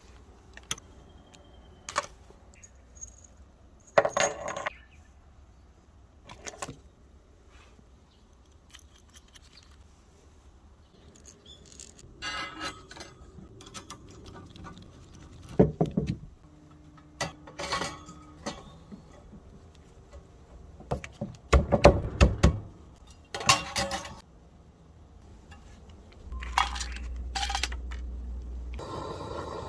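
Light metal clinks and clatter from small metal parts being handled and set against each other, in scattered taps with a louder cluster a little past the middle. A steady low rumble runs for about three seconds near the end.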